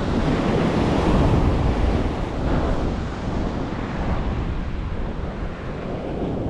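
Wind buffeting the microphone over surf breaking on the beach, louder for the first couple of seconds.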